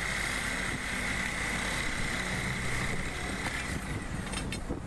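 Compressed air hissing from a nozzle on an air hose with a steady whistle, blowing debris out of a hole in the pavement. It fades about three and a half seconds in, leaving a few light clicks.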